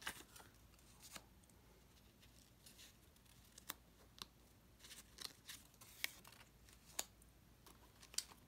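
Faint, scattered clicks and soft taps of paper picture cards being handled and laid down one at a time on a tablecloth.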